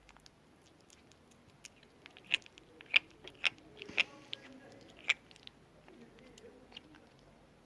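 Small kitten chewing its food, with a string of sharp clicking and smacking sounds over a few seconds in the middle.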